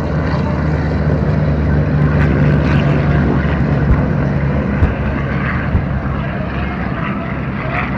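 Propeller warbird engine droning steadily as it flies over, loudest in the first half and then easing off. Two short thumps come about four and five seconds in.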